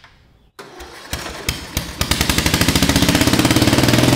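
Riding lawn mower engine turned over by its electric starter, firing on starting fluid about two seconds in. It then runs with loud, rapid exhaust pulses through an open header with no muffler, burning off the starting fluid.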